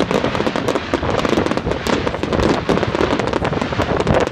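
Fireworks going off in a rapid, continuous barrage of crackling bangs and pops.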